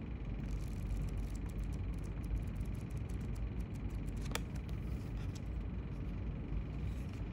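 Steady low background rumble with a faint high whine, over which book pages rustle and tick lightly as they are flipped and handled; one sharper tick about four seconds in.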